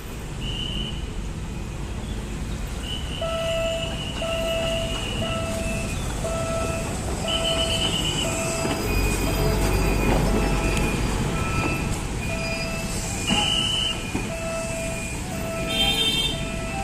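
Colmar rail-road excavator running on the track, with a repeating warning beep over its engine and short high-pitched squeals now and then. A deeper rumble swells about halfway through.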